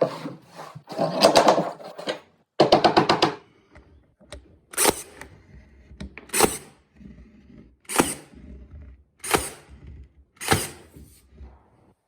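Knocks from flooring being laid: two quick runs of rapid knocks, then five single sharp strikes about one and a half seconds apart.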